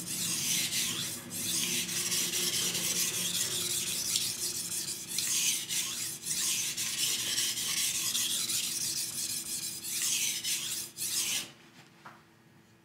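Steel knife blade stroked back and forth on a wet 1000-grit whetstone, a steady gritty scraping that swells and fades with each stroke, raising a burr on the first side of the edge. The strokes stop about eleven seconds in.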